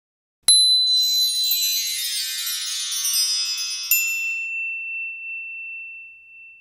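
A chiming sound logo: a sudden bright ping, then a cascade of high tinkling chimes, a second ping just before four seconds in, and one high ringing tone that slowly fades away.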